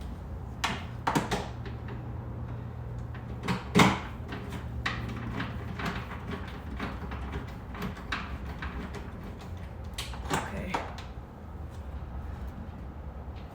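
Scattered clicks and knocks of tools and parts being handled while fitting a car door handle, the loudest a knock about four seconds in, over a steady low hum.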